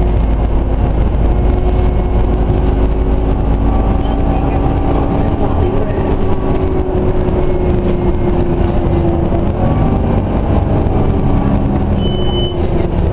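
Scania OmniCity bus running along the road, heard from inside the passenger cabin: a steady engine and drivetrain drone with a whine that drifts gently in pitch as the bus moves. A short high beep sounds near the end.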